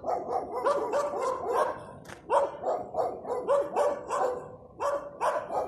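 Several yard guard dogs barking in rapid, repeated barks, roughly three a second, with two short lulls: territorial barking at a passing dog.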